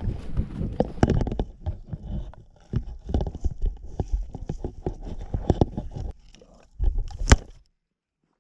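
An African lion's teeth and mouth knocking and scraping on a GoPro camera right at the microphone, in irregular knocks over a low rumble. The loudest knock comes near the end, and then the sound cuts off abruptly.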